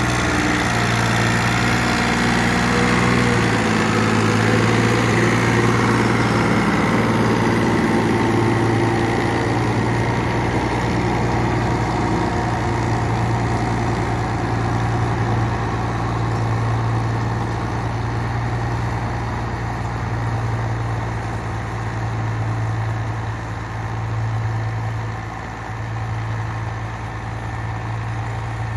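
Farmtrac Champion 42 tractor's three-cylinder diesel engine running steadily under load while it drives a 9-foot rotavator through the soil, slowly fading as it moves away.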